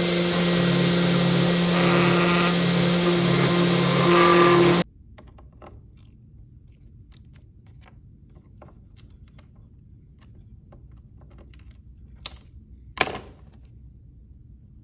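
A power tool's motor running steadily with a hum, then cutting off abruptly about five seconds in. After that, only a few faint clicks and taps, with one sharper click near the end.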